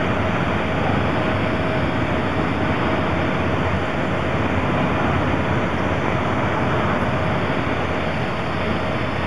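Steady rumble and hiss of a steam locomotive and a diesel locomotive standing close by, with a faint steady high tone running through it and no exhaust beat.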